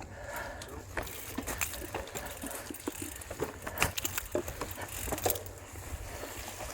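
Geared bicycle ridden over a rough, rooty dirt trail, its frame and parts rattling with frequent short clicks and knocks over a steady low rumble.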